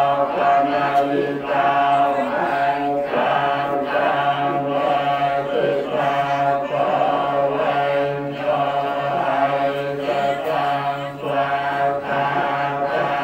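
Buddhist monks chanting a blessing in unison: a steady, droning recitation that runs in phrases, with brief breaks every second or two.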